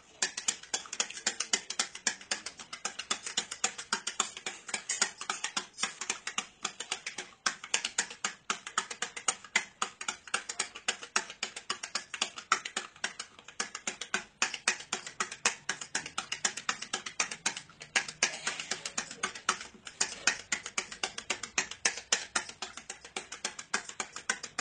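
A stirrer clinking rapidly and continuously against the inside of a drinking glass as soap is stirred into water to dissolve it.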